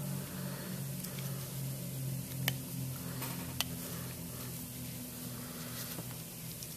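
A few small, faint clicks as a rubber U-cup seal is pressed by gloved fingers into the end of a plastic pump spool, over a steady low background hum.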